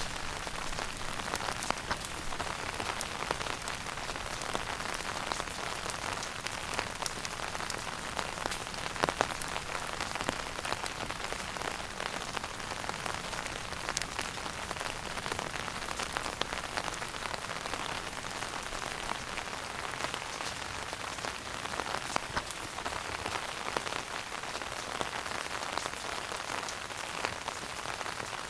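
Wood fire burning in a fireplace: a steady soft hiss with frequent small crackles and a few louder pops.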